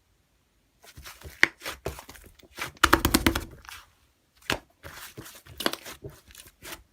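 Slime being squished and worked by hand: irregular sticky clicks and pops, with a quick run of crackling pops about three seconds in.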